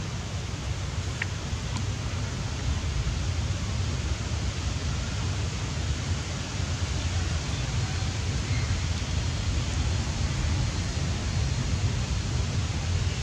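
Steady wind buffeting the microphone outdoors: a low, fluttering rumble under an even hiss.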